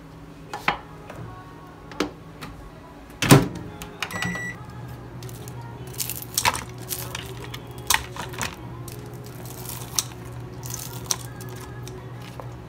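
Microwave oven door shut with a thud and a single beep as it is started, then the microwave running with a steady low hum. Sharp metallic clicks and snips of scissors and tongs cutting fried chicken sound over the hum.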